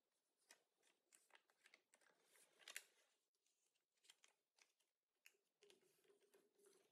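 Faint, irregular rustling and crinkling of a thin strip of origami paper being folded and creased by hand, with one louder crinkle near the middle.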